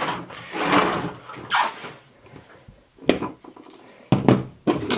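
Rustling and handling noise, then a few sharp knocks about three seconds in and again just after four, as hard hand tools are handled on a tabletop.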